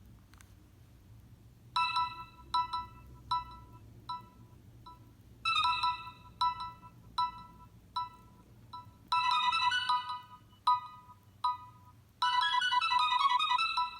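Nokia 6681 ringtone playing: after a short pause, a synthesized melody of short, clipped notes begins about two seconds in and repeats in phrases, with fuller sustained notes filling in from about nine seconds in.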